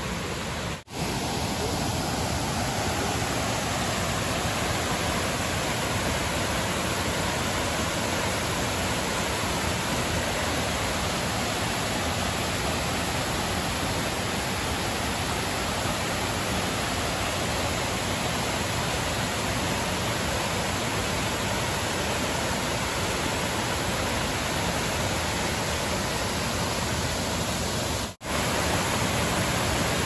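Waterfall in full rainy-season flow, a steady rush of water over rock ledges. The sound drops out briefly twice, about a second in and near the end.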